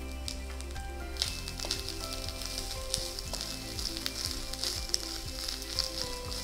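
Grated coconut, lentils and dried red chillies roasting in a nonstick wok, sizzling and crackling while a spatula stirs them with small scrapes and clicks against the pan. The sizzle gets louder about a second in.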